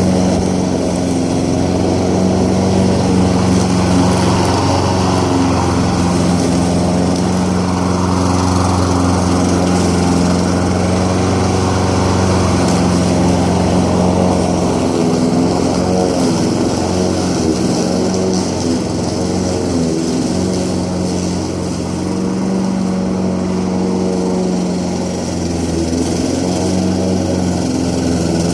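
Petrol lawn mower engine running steadily while cutting grass, its pitch dipping slightly now and then as the load changes.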